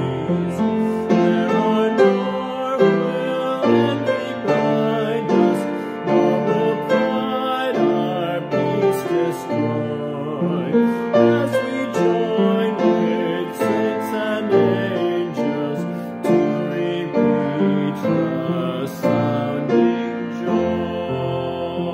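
Piano music with a man singing along, fading away at the end.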